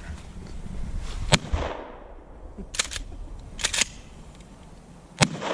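Two sharp gunshots from a small break-open .22 handgun, about four seconds apart, each a crack with a short ringing tail.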